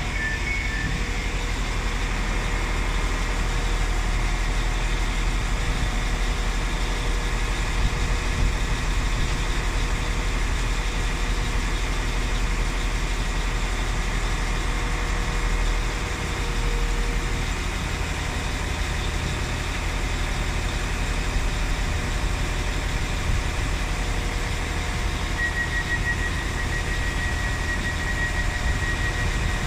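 Diesel multiple-unit passenger train idling at the platform, a steady engine drone with a deep rumble that eases briefly about halfway through. A high, rapid beeping starts near the end.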